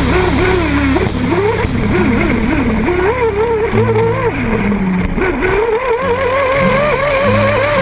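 Small high-revving RC truggy engines, 1/8-scale nitro, running and revving hard, their pitch rising and falling over and over as the throttle is worked. Near the end one engine is held high with a fast warble.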